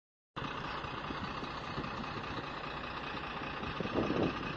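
A vehicle's engine running steadily, heard from inside the vehicle, a constant rumble and hum that starts suddenly just after the beginning.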